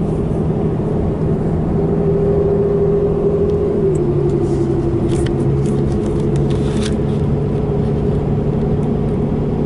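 Cab drone of a Ram diesel pickup cruising while towing a fifth-wheel camper: a steady engine hum over tyre and road noise. The engine's pitch steps slightly lower about four seconds in.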